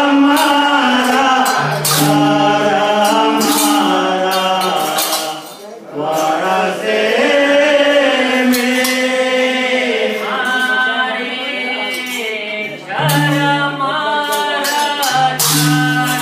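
Devotional bhajan: a male voice sings a melody with held notes, over a steady beat of tabla and jingling hand percussion.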